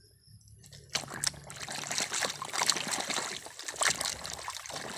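Water splashing and sloshing as a hand swishes a mud-caked toy truck back and forth in shallow pond water to wash it, starting about a second in.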